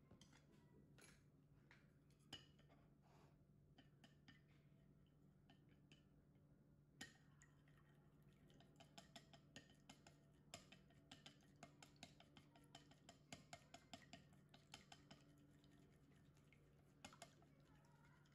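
Faint clicking of wooden chopsticks against a ceramic plate while beating an egg: scattered taps at first, then a quick run of clicks from about halfway through, over a steady low hum.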